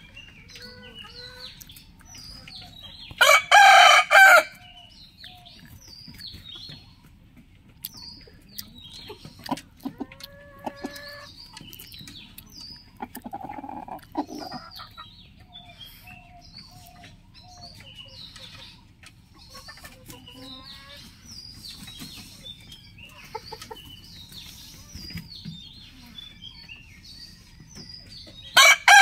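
Roosters crowing: a loud crow about three seconds in, a quieter one near the middle and another loud one at the very end. Between the crows, chickens keep up short clucks and calls.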